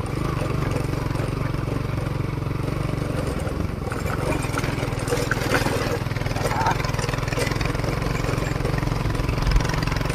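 Motorcycle engine running steadily while riding along at an even pace.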